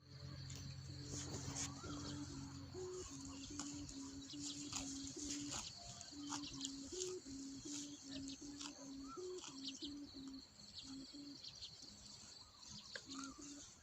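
A kite's sanu hummer, a rattan bow about 1.8 m long, humming in the wind: a pulsing tone broken into short notes about two a second, stepping briefly higher every few seconds, with a deeper drone under it for the first two seconds. Birds chirp throughout.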